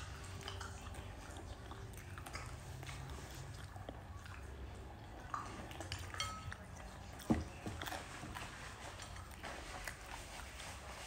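A person chewing and biting french fries, soft mouth sounds with scattered small clicks and taps, the sharpest about seven seconds in.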